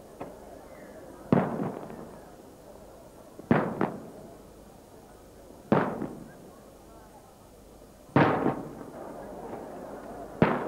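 Aerial firework shells bursting about every two seconds, each a sharp bang that fades into a rolling echo; one burst near the middle comes as a quick double bang.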